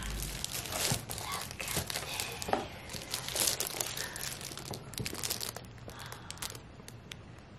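Clear plastic shrink wrap crinkling and crackling in irregular bursts as a wrapped stack of cardboard drawer jewelry boxes is handled.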